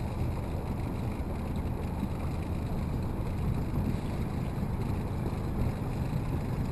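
Motorboat engine running steadily while the boat is under way, a constant low drone with rushing noise over it.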